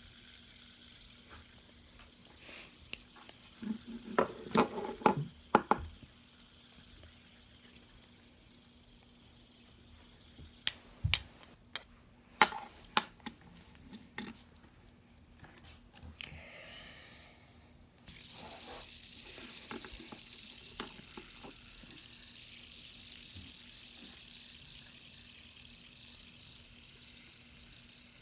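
Two fidget spinners whirring on their bearings as a steady soft hiss, with clusters of sharp clicks and knocks about four to six seconds in and again around eleven to fifteen seconds in.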